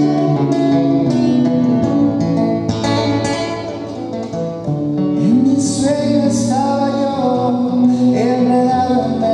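A man sings live to his own nylon-string electro-acoustic guitar. The guitar is plucked in a run of quick notes, and about halfway through the voice comes in more strongly with held, bending notes.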